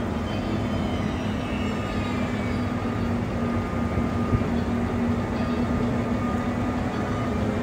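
ÖBB Class 1116 Taurus electric locomotive at the head of a Railjet moving off slowly. It gives a steady electric hum with faint whining tones that rise in pitch as it picks up speed, the traction-converter 'singing' these locomotives are known for.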